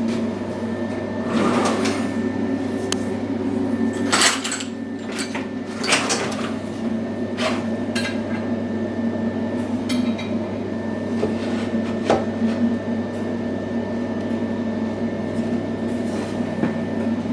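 CNC loom's motors running with a steady whine. Sharp metallic clicks and knocks come now and then, the loudest about 4, 6 and 12 seconds in.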